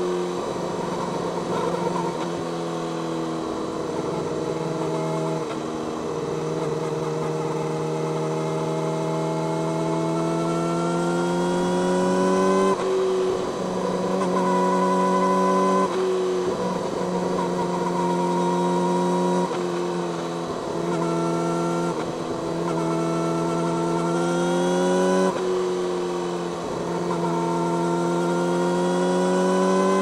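Yamaha YZF-R6's inline-four engine through an Akrapovic megaphone slip-on exhaust, pulling hard with pitch climbing steadily and dropping sharply at each upshift, several times over.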